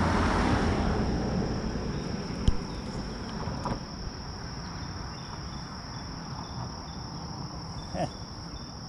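Steady high-pitched insect drone, like crickets, over outdoor background noise. A louder rushing noise fades away over the first second or two, and a few sharp knocks sound about two and a half seconds in, again a second later, and once near the end.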